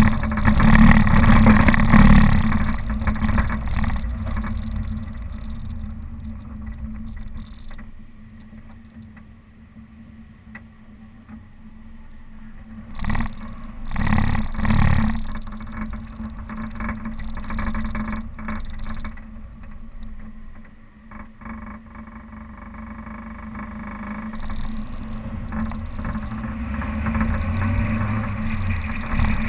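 Suzuki Vitara's engine running as the 4x4 is driven off-road. It is loud for the first couple of seconds, then dies down. It surges loudly twice around halfway and builds again near the end.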